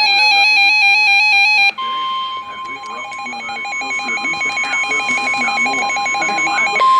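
NOAA Weather Radio emergency alert tones. A rapid warbling electronic tone pattern plays first. Under two seconds in, the steady single-pitch warning alarm tone of about 1050 Hz begins. The warbling carries on fainter beneath it until near the end, when the alarm tone gets louder on its own.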